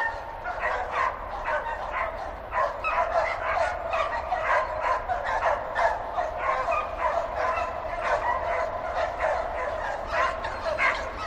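Dogs barking in a rapid, continuous run of short, sharp barks and yips.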